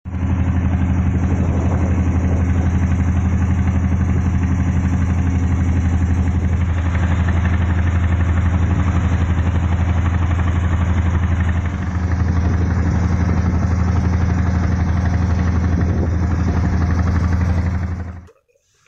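Fishing boat's engine running steadily under way, a loud low drone. It dips briefly about twelve seconds in and fades out near the end.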